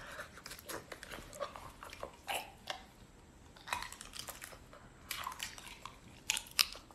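Faint, scattered clicks and mouth noises as fingers pry clear plastic Invisalign aligners off the teeth.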